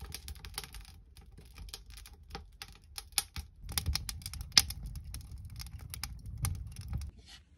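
A wood fire burning in a Dickson Oak cast-iron pot-belly stove, crackling and popping in irregular sharp snaps, with the loudest pop about halfway through and a low rumble underneath.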